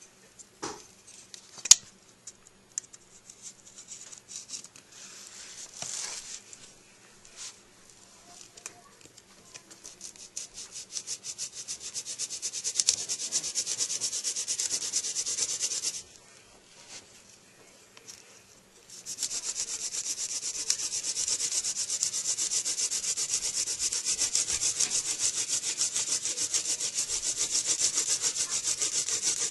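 A few scattered clicks and a sharp knock, then a hand-drill spindle twirled fast between the palms, its tip grinding into a goldenrod-gall hearth: a rapid rhythmic rubbing that builds up about ten seconds in, stops for about three seconds, then resumes steadily, drilling to build a friction-fire coal.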